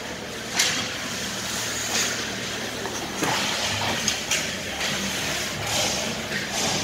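Ice hockey play close to the boards: skate blades scraping and cutting the ice, with several sharp knocks of sticks on the puck and ice over a steady rink hum.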